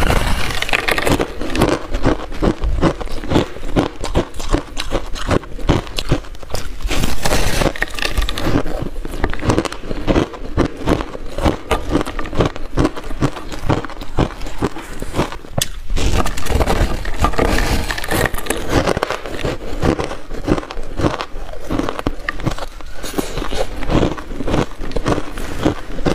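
Crunching and chewing of a block of refrozen shaved buckwheat ice, a dense run of sharp crackling crunches that continues throughout.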